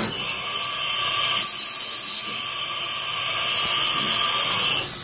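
1996 Hurco BMC 4020 vertical machining center running: a loud, steady spraying hiss over a thin machine whine. The hiss swells briefly in the middle, then settles again.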